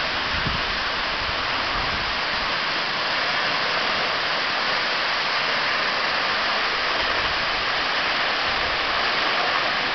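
A tall, narrow waterfall plunging into a pool: the water's steady, even hiss.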